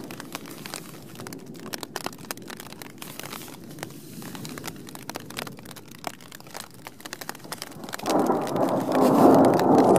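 Steady rain with many sharp drop hits. About eight seconds in, a loud roll of thunder builds and keeps going.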